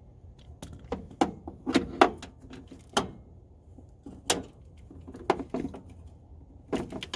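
A damaged socket ratchet being worked by hand: irregular sharp metallic clicks, a dozen or so, the loudest about two seconds in. Its mechanism now skips, damaged by straining on a seized crank pulley bolt.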